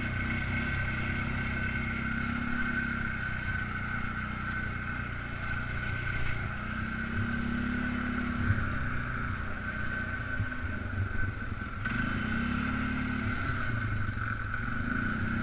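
Polaris Sportsman 500 ATV's single-cylinder four-stroke engine running steadily while riding, with a constant high whine over the engine drone and a few short clunks as it goes over the trail.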